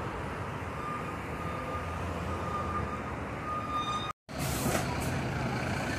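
Diesel bus engines running at a coach terminal: a steady low hum with a faint high whine over it. The sound cuts out for an instant about four seconds in, then the same engine noise carries on.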